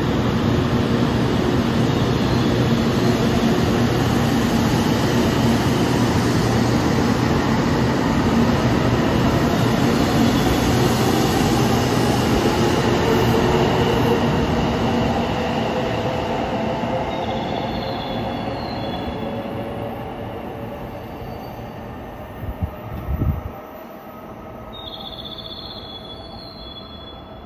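JR Kyushu 800 series Shinkansen moving along the platform: a steady rumble of wheels and running gear with a faint whine gliding in pitch. It fades away over several seconds from about halfway in. A few brief low thumps come near the end.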